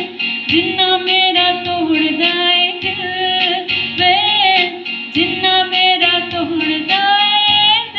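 A girl singing solo into a handheld microphone: held notes that glide and waver in pitch, in short phrases broken by quick breaths.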